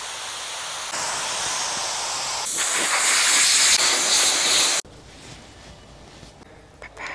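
Water hissing from a garden-hose spray nozzle, then a compressed-air blow gun blasting water off the car, a louder high hiss. The hiss grows louder in steps and cuts off suddenly about five seconds in, leaving only faint sounds.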